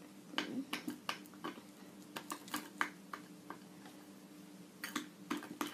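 Spoon stirring a thick chocolate butter-and-condensed-milk mixture in a glass bowl, clicking and scraping against the glass in irregular strokes, with a quieter pause a little past halfway before the clicking resumes. A faint steady hum runs underneath.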